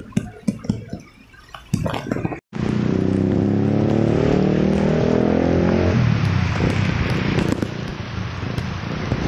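A few knocks and taps of handling the phone, then, after a brief dropout, a motorcycle engine speeding up with its pitch rising for about three seconds as the bike pulls away, and then running steadily under a constant rush of wind and rain.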